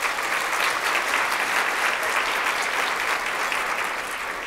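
Large audience applauding, the clapping tapering off near the end.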